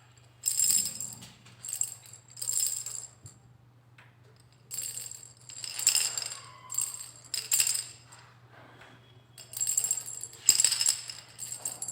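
Montessori sound box cylinders being shaken by hand one after another, each giving short bursts of rattling from the filling inside, in three groups of shakes with pauses between. The cylinders are compared by ear to verify which one is the softest. A steady low hum runs underneath.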